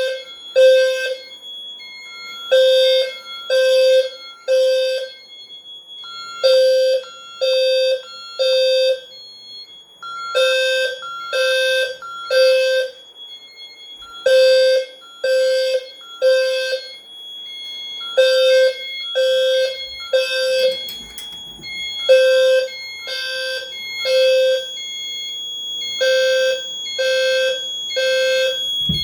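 Fire alarm horns sounding the temporal-three evacuation pattern: three half-second blasts, a pause, then again, about every four seconds. A steady high tone runs underneath.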